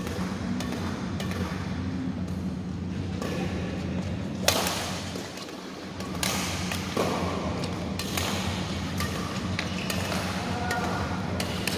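Badminton rackets hitting a shuttlecock in a rally: a run of sharp smacks, the loudest about four and a half seconds in, over a steady low hum.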